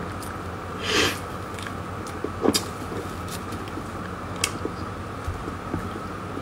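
Close-miked eating: a bite into a soft filled crepe wrap about a second in, then closed-mouth chewing with a few sharp mouth clicks, over a steady background hum.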